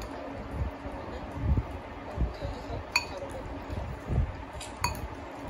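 Metal fork and spoon clinking against a ceramic bowl while mixing and scooping food, with two clear ringing clinks about three and five seconds in and soft low thuds in between.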